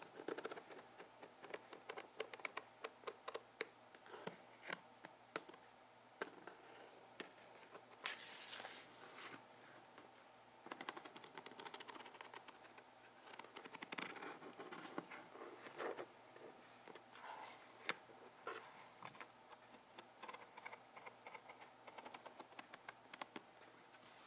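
Long fingernails tapping and scratching on a cardboard box: a steady run of quick, light, irregular clicks, with a few brief scratches.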